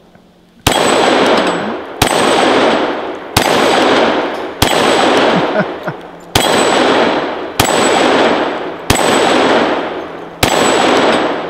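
A 10mm pistol firing eight shots about a second and a quarter apart at a steel dueling tree. Each shot comes with the ring of a struck steel plate, fading off before the next shot.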